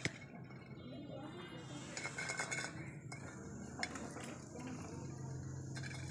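Stainless-steel feed bowl clinking and tapping as a hen pecks food from it. A cluster of clinks comes about two seconds in, and a sharper one near four seconds.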